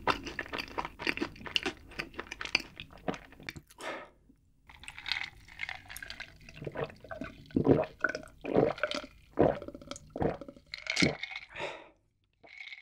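Close-miked mouth sounds: a mouthful being chewed, with many small, rapid crunchy clicks for about four seconds. After a short pause comes a series of gulps and swallows as an iced drink is drunk from a glass mug.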